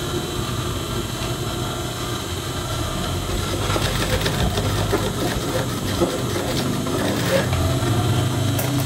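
Industrial sewing machine running with a steady motor hum, stitching in short runs from about the middle onward as the ends of a welt pocket seam are locked with back-and-forth stitches.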